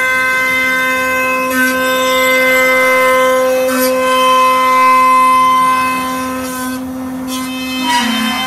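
CNC router spindle running at speed: a loud, steady high-pitched whine that dips slightly in pitch near the end, with a few faint clicks.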